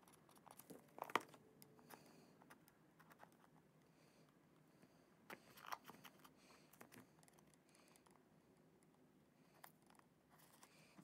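Faint, sparse scratches and crinkles of a knife blade picking at and slitting the plastic shrink wrap on a small cardboard box, a few short clicks between long near-silent stretches.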